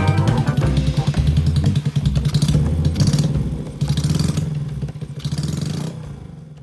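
Honda Monkey's single-cylinder four-stroke engine, fitted with a high-lift cam, running with a rapid even pulse that fades away near the end.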